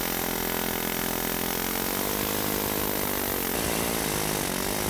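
Pneumatic air hammer running continuously with a punch against the back of the pinion, a rapid steady hammering, driving the pinion out of a Dana 44 front axle housing.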